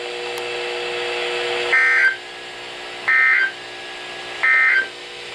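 Emergency Alert System end-of-message data bursts: three short, identical bursts of warbling two-tone digital code, about a second and a half apart, marking the end of the alert. A low steady hum comes first and stops as the first burst begins.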